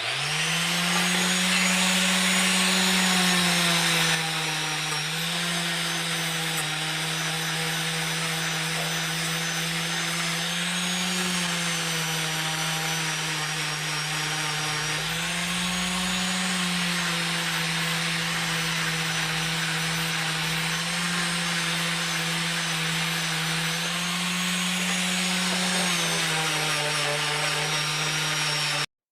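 Electric power tool buffing a stainless steel exhaust elbow, its motor running with a steady whine. The pitch sags when the tool is pressed onto the metal and rises again when eased off, several times, and it cuts off suddenly near the end.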